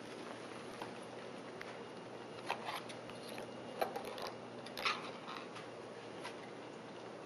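Light taps and clicks of a miniature basket being batted about a hardwood floor by kittens, with three louder knocks at about two and a half, four and five seconds in, over a steady faint hiss.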